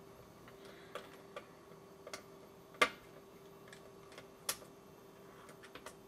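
Faint scattered clicks and ticks of a small screwdriver and the hard drive's screws and brace being worked loose inside an opened 2009 13-inch MacBook Pro, the two loudest about three and four and a half seconds in. A faint steady hum underneath.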